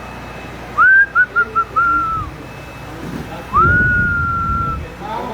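A person whistling: a rising note, four quick short chirps and a held note, then after a pause one long held whistle lasting over a second, with a low rumble underneath it.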